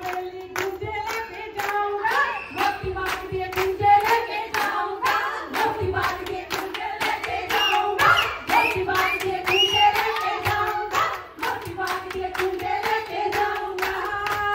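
Voices singing Punjabi boliyan for giddha, with steady rhythmic hand clapping keeping time at about three claps a second.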